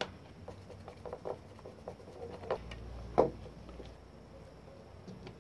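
Light clicks and taps of a hair dryer's small motor and plastic housing being handled and fitted back together, with one sharper knock about three seconds in.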